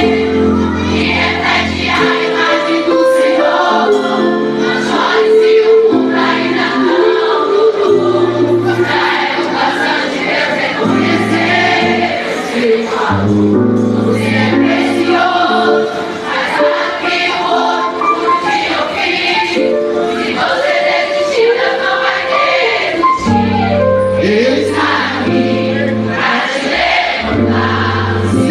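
Live gospel worship song: a band playing with steady bass notes while many voices sing together in choir-like unison.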